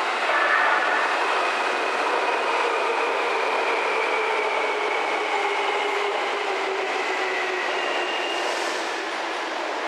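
Seibu 9000-series electric train pulling in and braking: steady wheel-on-rail running noise with the traction motors' whine slowly falling in pitch as it slows, and a brief high squeal near the end.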